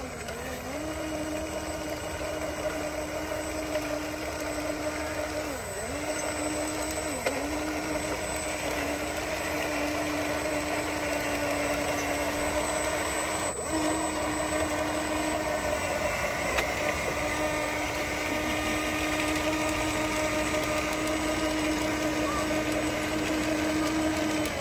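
Electric track motors and gearbox of a toy RC bulldozer whining steadily as it crawls through mud, the pitch dipping briefly a few times, with one click about halfway through.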